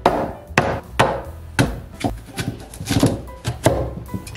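Kitchen knife chopping taro, about eight quick strikes at an uneven pace.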